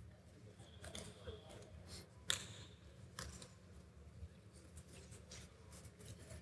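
Faint, scattered clicks and taps of a laptop's keys and trackpad being worked, with one sharper click a little over two seconds in, over a low steady hum.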